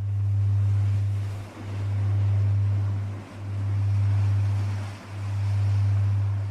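A deep, steady low hum, like a pure tone, swelling and fading about every second and a half to two seconds, over a faint wash of ocean-wave noise.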